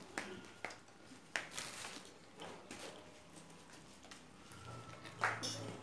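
Eating sounds: several sharp clicks of utensils against dishes, with short bursts of chewing noise between them; the loudest click comes near the end.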